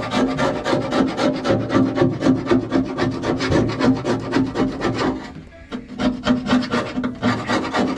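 Hand tool scraping rust off a steel hull in rapid back-and-forth strokes, with a short pause about five and a half seconds in before the strokes start again.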